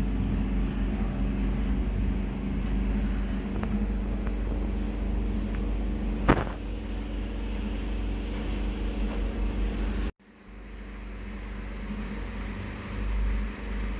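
A steady low mechanical hum, with a single sharp click about six seconds in. Just past ten seconds the sound cuts out abruptly and comes back fainter.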